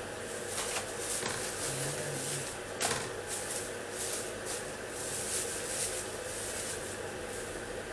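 Plastic carrier bag and paper food packaging rustling and crinkling as they are handled and opened, with a sharper crackle about three seconds in.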